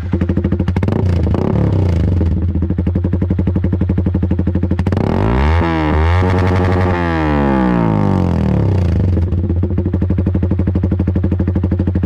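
Yamaha R15 V3's single-cylinder engine idling through a small aftermarket muffler of the type fitted to Honda Dio scooters, loosely set on the pipe. It is revved up and down quickly a couple of times midway, then returns to a steady, pulsing idle.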